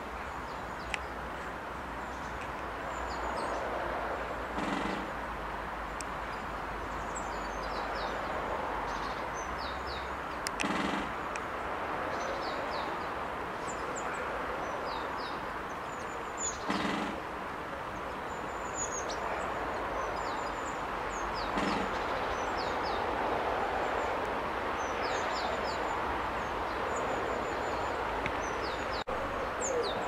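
Great spotted woodpecker drumming: four short, rapid rolls of its bill on wood, each about half a second long and about six seconds apart, the kind of drumming often understood as a territorial signal. Small birds chirp high in the background over steady outdoor noise.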